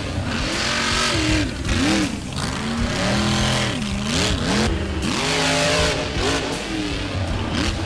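Monster truck's supercharged V8 engine revving, its pitch rising and falling in quick swells several times over.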